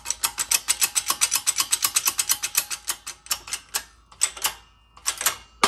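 Air-driven hydraulic pump of a shop press clicking rapidly, about ten clicks a second, while the press forces a bushing out of a transmission sun gear. It stops for about a second near the end, then clicks briefly again.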